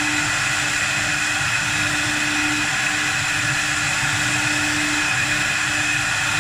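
A 4-axis CNC wood lathe running steadily while turning wood: an even machine hum and rushing noise with a held tone.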